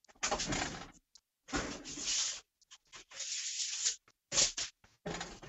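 A foil-lined baking sheet being taken from the oven and handled, in about five bursts of scraping and rustling with short silences between.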